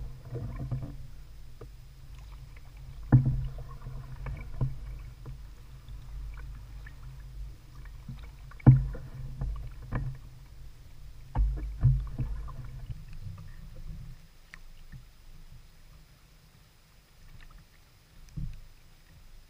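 Ally folding canoe being paddled, heard as a dull low rumble of water and hull with sharp knocks of the paddle against the canoe every few seconds, the loudest about nine seconds in. It grows quieter over the last few seconds.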